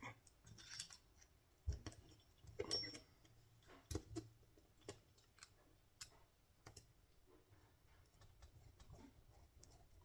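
Faint, scattered clicks and taps from a screwdriver and small metal screws being worked into a model helicopter's frame to mount its servos. The clicks thin out after about seven seconds.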